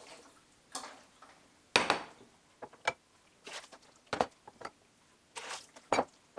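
Glass canning jars, freshly sterilised in boiling water, knocking and clinking against the pot and each other as they are lifted out and set down. A string of sharp knocks, the loudest about two seconds in, with short scraping noises between.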